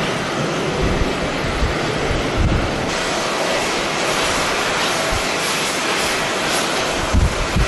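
Jet airliner engines with a steady, loud rush of noise. Gusts of strong wind buffet the microphone with irregular low thumps.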